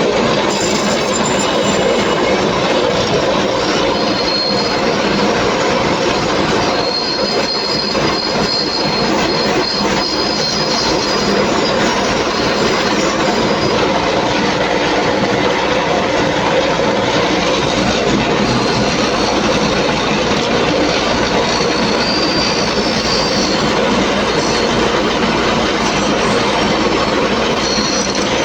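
Electric bench wire-brush wheel running continuously, very noisy, scrubbing corrosion off a washing-machine motor's metal end cover, with a high squeal that comes and goes as the cover is pressed against the wheel.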